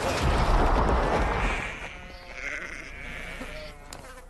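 A loud rushing noise with a low rumble, then a goat bleats once, a long call lasting about two seconds, and the sound cuts out briefly near the end.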